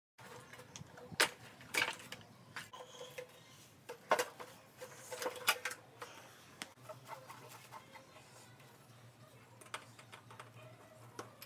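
Irregular clicks and plastic knocks from dismantling a Toyota Camry dashboard: the vent tubes are unclipped from the dash frame and a screwdriver works at the airbag screws. The sharpest clicks come about 1, 2, 4 and 5 seconds in.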